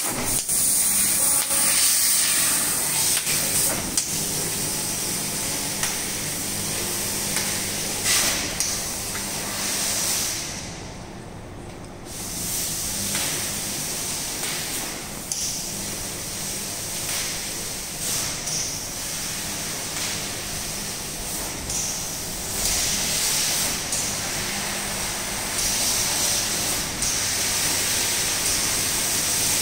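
GL3015F fibre laser cutting machine with a 1500 W IPG laser source cutting sheet metal: a steady hiss of assist gas from the cutting head over a low machine hum. About ten seconds in the hiss fades away for under two seconds, then comes back.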